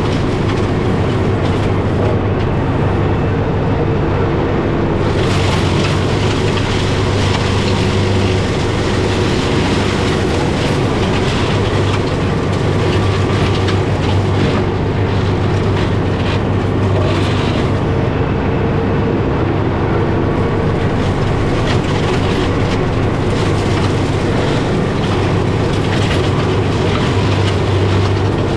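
John Deere 4066M compact tractor's diesel engine running under steady load, driving a PTO-powered Fieldmaster GM180BB mulching mower through gorse. There is a constant low hum, and the mower's hiss swells and fades every few seconds.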